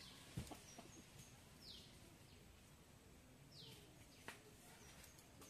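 Quiet outdoor ambience with a bird calling: two short whistles falling in pitch about two seconds apart, plus a few faint high chirps. A couple of soft taps break in, one about half a second in and one near the end.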